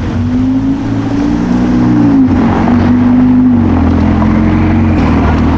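A sports car's engine accelerating hard, its pitch climbing and then dropping back several times as it revs up through the gears, loudest in the middle.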